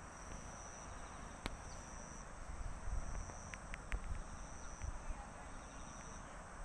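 Insects trilling steadily in long, evenly spaced phrases. Dull low bumps and rustling from about two and a half to five seconds in, as the cat presses its face against the phone.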